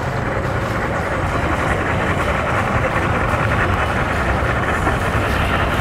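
Boat engines running at low speed by the ramp: a steady low hum.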